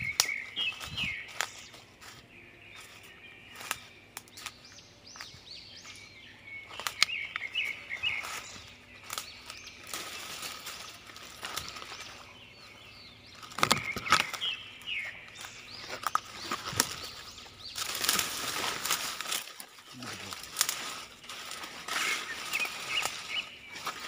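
Leaves and twigs rustling and crackling as someone pushes through dense undergrowth, with small birds chirping in short bursts every several seconds.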